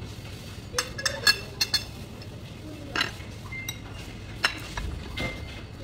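Metal spoon and fork clinking and scraping against china bowls and plates, in scattered light clinks, several close together in the first two seconds and a few more later.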